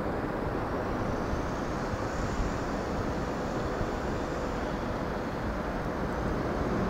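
Steady low rumble with wind on the microphone as an 8520 class DART electric train approaches from far off; a faint high hiss swells and fades in the middle.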